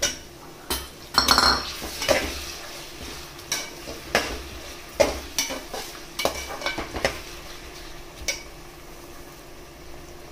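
Potato cubes dropped into a pan of frying onion masala, then a perforated steel skimmer stirring them, clanking and scraping against the aluminium pressure cooker with a faint sizzle. The clanking stops about eight seconds in, leaving only the light sizzle.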